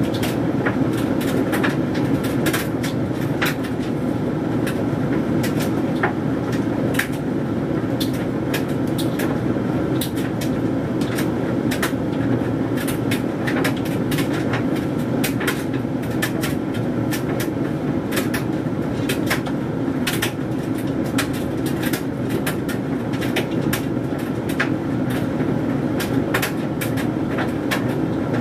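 Hoover Dynamic Mega 10kg condenser tumble dryer running: a steady drum-and-fan rumble with frequent irregular clicks and taps as the load of synthetic clothes tumbles in the drum.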